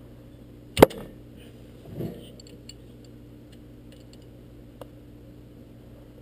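A wrench loosening a Kawasaki Ninja 250's oil drain bolt: one sharp metallic crack about a second in, a softer metal clatter a second later, then a couple of faint metal ticks.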